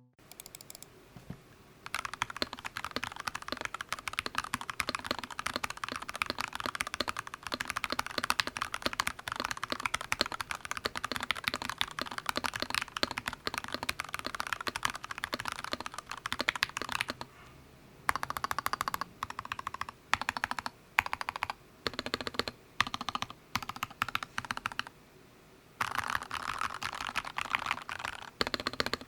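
Typing on a mechanical keyboard fitted with thick double-shot PBT keycaps in Akko's ASA-Low profile: a fast, continuous run of key clicks, then a stretch of short bursts with pauses in between, then steady typing again near the end.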